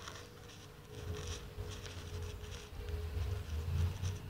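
Low, uneven rumble of a jet aircraft passing overhead, swelling toward the end, with a faint steady whistle. Crackling and rubbing from the camera being handled lie over it.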